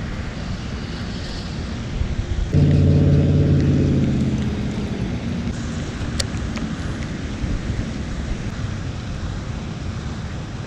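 A low, pitched engine drone comes in suddenly about two and a half seconds in and fades away over the next two seconds, its pitch sagging slightly as it goes, over a steady low rumble.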